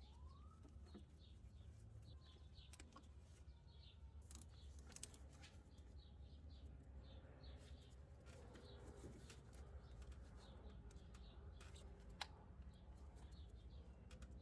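Near silence with faint bird chirps in the background and a few light clicks, the sharpest about twelve seconds in.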